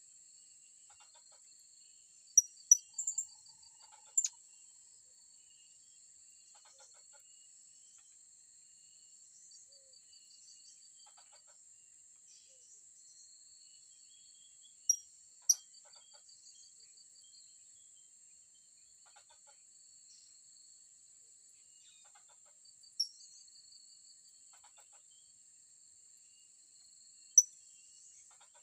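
Short, sharp, high-pitched calls of blue-crowned hanging parrots (serindit): a quick cluster of four, then a pair, then two single calls, spaced several seconds apart. Under them runs a steady, high insect drone with a pulsing cricket-like trill.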